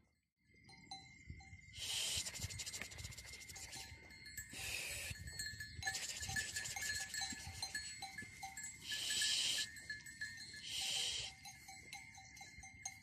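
Sheep bleating four times in short calls, with small livestock bells tinkling and a steady high tone underneath.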